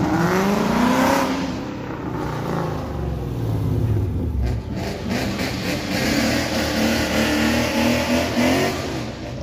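Ford Mustang's engine revving hard, climbing steeply in pitch over the first second, then held loud at high revs with the note bouncing up and down in the second half.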